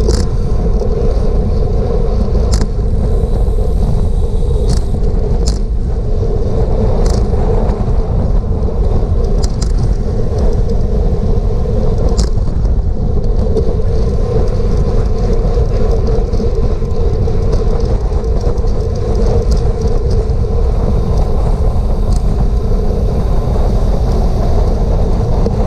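Steady wind and road rush on a bicycle-mounted GoPro microphone while riding, with a few sharp ticks scattered through it.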